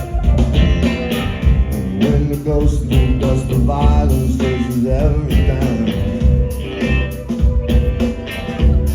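Live band music recorded from the audience, with heavy bass and a steady drum beat.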